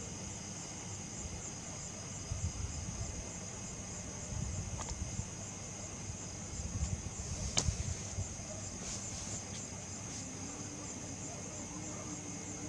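Crickets chirring in a steady, high, finely pulsing trill, over a low rumble with a few soft bumps and one sharp click about seven and a half seconds in.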